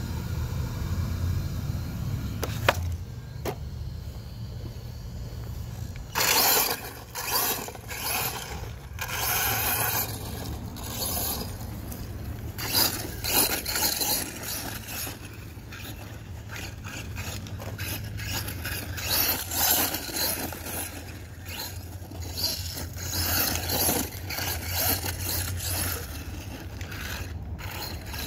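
Electric RC basher truck with a brushless motor driving hard over loose dirt: from about six seconds in, irregular bursts of tyres scraping and churning the dirt, over a steady low hum.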